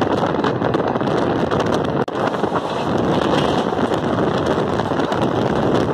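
Strong wind buffeting the microphone over the steady rumble and rattle of a moving passenger train, heard from an open coach door at speed.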